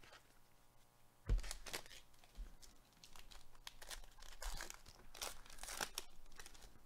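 Foil wrapper of a 2021 Panini Mosaic baseball card pack being torn open and crinkled by gloved hands. A sudden thump about a second in, then crackling and tearing that is loudest near the end.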